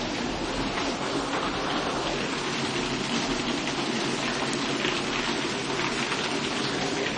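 Heavy rain mixed with hail pelting hard surfaces: a dense, steady hiss full of fine ticks from hailstones striking.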